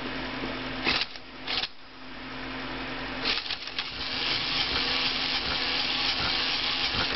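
Small electric gear motors of a ToyQuest Tekno robotic puppy whirring, with a couple of plastic clicks about a second in while a hand holds its head. The motors fall quiet briefly, then start up again about three seconds in with a busy whir and rapid gear ticking.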